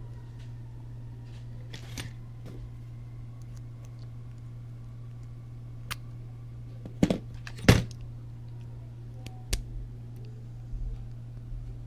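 Small sharp clicks and knocks of tiny parts being handled and an axle shaft being pushed into a tight-fitting miniature bearing on a micro RC car's front hub. The loudest knocks come as a pair about seven seconds in, with another near nine and a half seconds. A steady low hum runs underneath.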